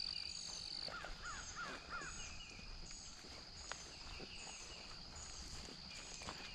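Dawn chorus of birds and insects in grassland: a high short chirp repeats about every two-thirds of a second, a high steady trill stops about a second in, and a quick run of four lower descending notes follows.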